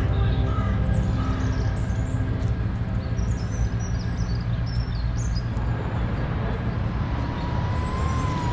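A cinewhoop FPV drone flying, its motors and propellers making a dense rushing noise on its onboard camera. Near the end a steady motor whine comes in as it slows toward the ground. Small birds chirp high above it midway, and a music track fades out about two seconds in.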